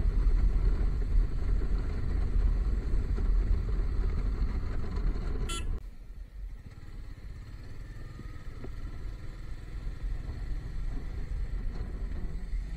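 Steady low rumble of a Royal Enfield motorcycle in motion, engine and road noise, with a horn beeping briefly about five and a half seconds in. Just after the beep the sound drops suddenly to a quieter, steadier riding noise.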